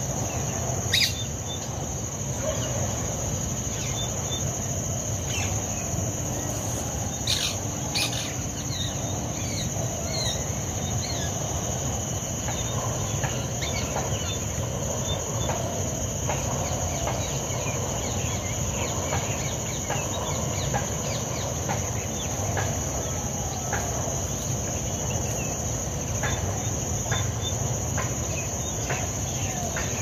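A steady high-pitched insect drone from crickets, with scattered short bird chirps and calls over it and a low steady rumble underneath.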